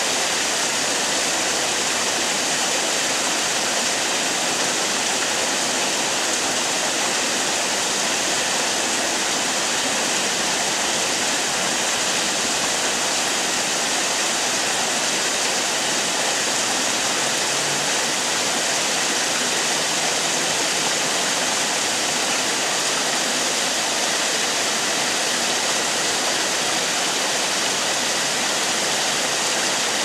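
Water from a man-made rock waterfall falling steadily over several ledges into a shallow pool: a constant, even rush of splashing water.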